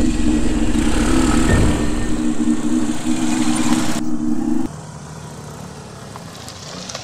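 Motor scooter and motorcycle engines running as the bikes ride up, under a loud, steady droning chord of background music. The drone cuts off suddenly about two-thirds of the way through, leaving only the quieter sound of the engines.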